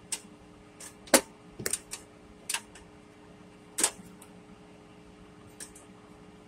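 About seven sharp clicks at irregular spacing, loudest about a second in and near four seconds, over a faint steady hum: a stove burner's igniter being clicked while the burner is having trouble lighting.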